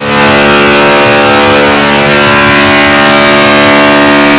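One loud, steady, buzzing tone blasted through a huge DJ sound-box rig of horn loudspeakers and bass bins, starting abruptly and holding one pitch throughout.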